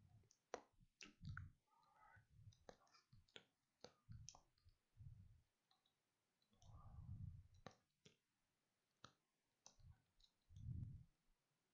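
Faint, irregular clicks of calculator keys being pressed one after another, with a few soft low thuds in between.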